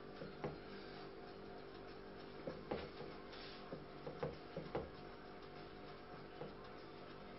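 Knife trimming a raw pork jowl on a plastic cutting board: faint cutting and handling noises with a few soft knocks of the blade on the board, most of them bunched in the middle. A steady hum runs underneath.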